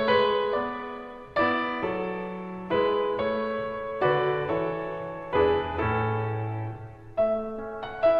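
Slow background piano music: chords struck about every second and a half, each fading away before the next.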